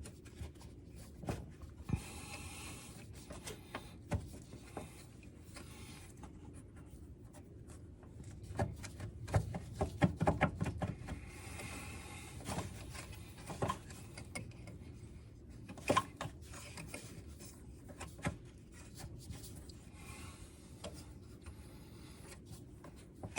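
Scattered metal knocks, clinks and scraping as a compact tractor's drive shaft is worked back up into place, with a busier spell of rattling about halfway through and a single sharp knock a few seconds after it.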